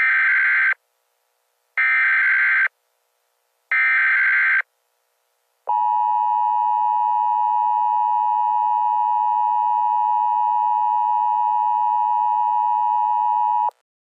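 Emergency Alert System tones: three short bursts of buzzing digital data (the SAME header) about two seconds apart, then the steady two-tone EAS attention signal held for about eight seconds and cut off sharply. The sequence opens a National Weather Service flash flood warning.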